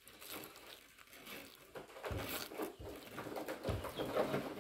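Water being poured onto freshly sown potting mix in a clear plastic seed tray: a soft, uneven trickle that gets louder after about two seconds, with a couple of low knocks from handling the tray.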